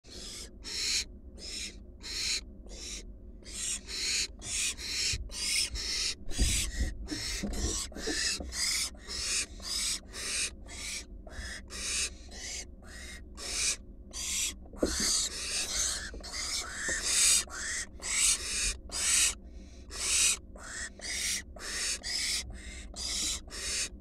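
Barn owl fledglings giving their rasping, hissing begging calls, short hisses repeating about twice a second without a break. A few low thuds sound about six to eight seconds in and again near the middle as the owls shift about the wooden nest box.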